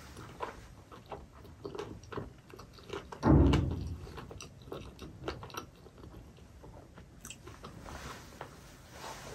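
Close-miked chewing of a soft steamed chicken momo dipped in chili oil: wet mouth clicks and smacks throughout, with one loud, low, muffled burst a little over three seconds in.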